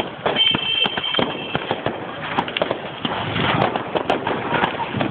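Fireworks and firecrackers going off in a dense, rapid string of crackles and pops, with a high steady whistle about half a second in that lasts about a second.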